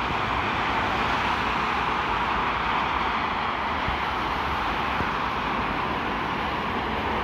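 Steady motorway traffic noise: the continuous tyre and engine sound of cars, vans and lorries passing at speed.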